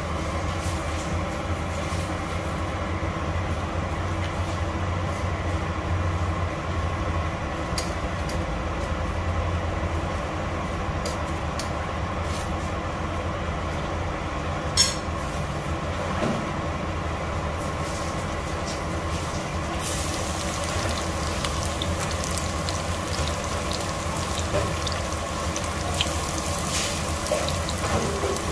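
Chopped garlic and onion start sizzling in hot oil in a nonstick pot, the hiss rising from about 20 seconds in. A steady low hum runs underneath, with a single sharp tap about 15 seconds in.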